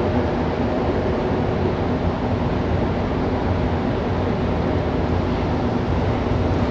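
Cabin noise of a rubber-tyred Montreal metro Azur train running through the tunnel between stations: a steady loud rumble and rush, with a faint motor hum that fades after about two seconds.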